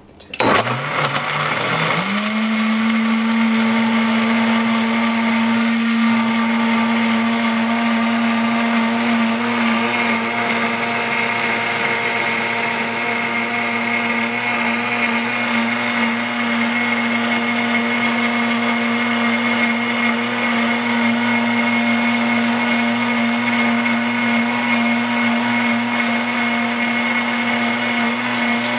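OMNI V 3 hp high-performance blender starting about half a second in. Its motor rises in pitch to full speed within a couple of seconds, then runs steadily, blending a jar of frozen corn, spices and hot water into chowder.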